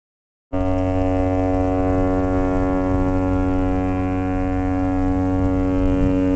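A ship's horn sounding one long, steady blast on a single note, starting about half a second in after a brief silence.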